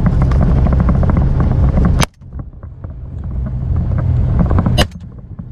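Vehicle driving on a dirt road: steady engine and road rumble with wind noise and a rapid run of clicks. The sound cuts out abruptly about two seconds in, builds back up, and drops sharply again near the end.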